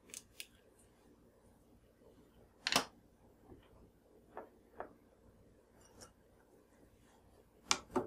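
A spatula knocking and scraping against a small glass bowl and measuring spoon while shortening is scraped into chocolate chips: a few separate short clicks and taps, the loudest about three seconds in and another near the end.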